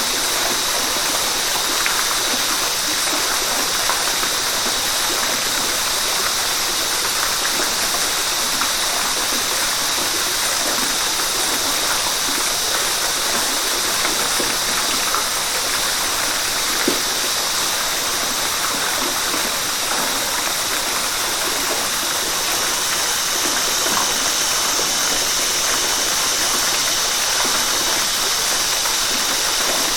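River water rushing steadily, a constant hiss of flowing water with small splashes through it.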